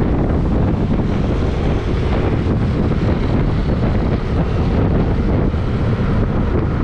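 Steady wind buffeting on the microphone of a moving vehicle, mixed with low road and engine noise.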